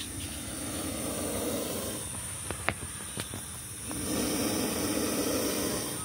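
Spectacled cobra giving the defensive hiss of an agitated snake: two long, low hisses of about two seconds each, with a few light taps in between.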